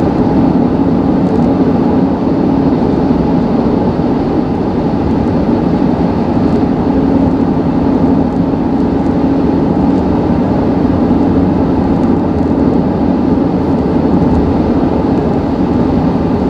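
Honda Ridgeline's V6 engine droning steadily under the load of a towed trailer at highway speed, mixed with road and wind noise inside the cab.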